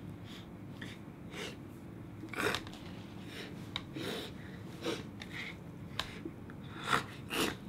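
A man sniffing closely at a pumpkin in short, scattered sniffs, with a few light taps of his hands on its rind. The two loudest sniffs come near the end.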